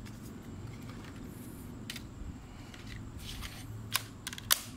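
Plastic clicks and handling as a flight battery is slid into the MJX Bugs 4W drone's battery bay, with a sharp click about four and a half seconds in as it latches home.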